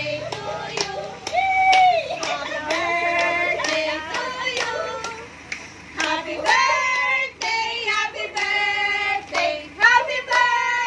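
A small group singing together loudly, mostly women, with hand clapping along.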